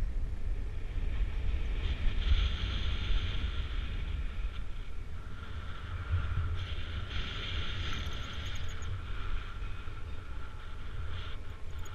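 Wind buffeting the microphone in gusts, a fluctuating low rumble, with a hiss of wind in the higher range that swells and fades.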